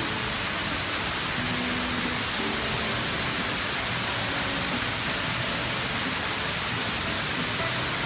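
Dubai Mall's tall indoor waterfall, water sheeting down a vertical wall into a pool below, making a steady, even rushing noise.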